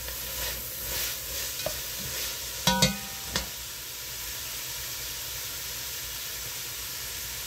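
Onions, celery and corn sautéing in a red enamelled pot, sizzling steadily while a spatula stirs them for the first couple of seconds. Around three seconds in come two sharp knocks, the first with a brief ring, after which only the steady sizzle remains.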